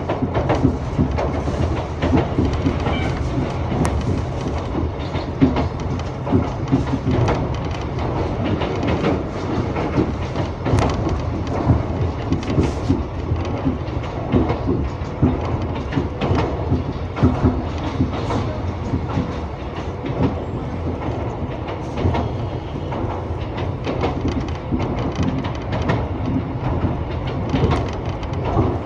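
Former Tokyu electric train car on the Iga Railway running along the line, heard from on board. A steady low rumble with frequent short clicks of the wheels over the track.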